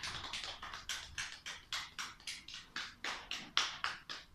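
Sparse applause from a small audience: a few people clapping, about six quick claps a second, uneven and fairly quiet.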